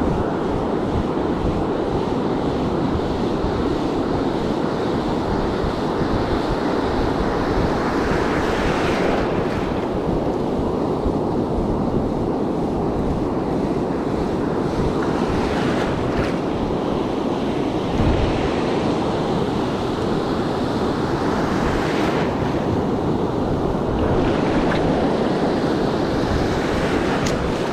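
Ocean surf breaking and washing up the beach in a steady rush, swelling brighter now and then as waves break, with wind buffeting the microphone.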